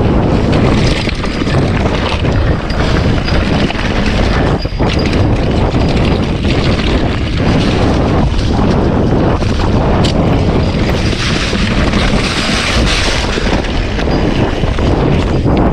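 Loud, steady wind buffeting the microphone, with a few brief knocks.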